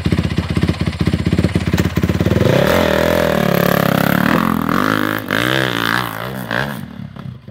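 Dirt bike engine idling with a fast, even beat, then revved hard about two and a half seconds in as it pulls away up a steep hill climb under load. The revs rise and fall several times and the sound fades as the bike climbs away.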